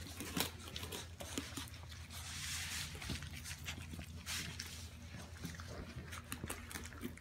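Basset hound puppies eating soft mush from a dish: a run of many small, irregular wet lapping and smacking clicks.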